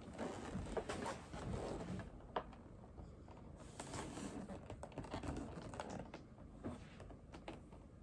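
Irregular clicks and rustling from a cardboard game box being handled close to the microphone.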